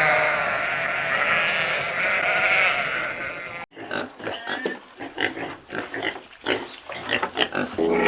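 Two edited animal-call clips. First a loud, wavering call lasting about three and a half seconds, then after an abrupt cut a quick, irregular run of short calls.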